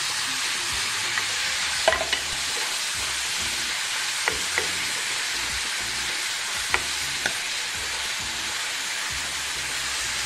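Sliced onions frying in oil in a clay pot, with a steady sizzle. A wooden spatula stirs them and knocks against the pot now and then, about five light clicks.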